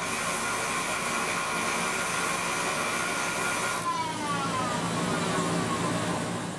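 Power grinder running with a harsh, steady grinding noise that starts suddenly, then spins down with falling pitch from about four seconds in.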